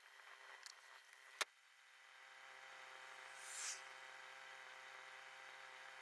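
Near silence: a faint steady hum, with one sharp click about a second and a half in and a short hiss a little past the middle.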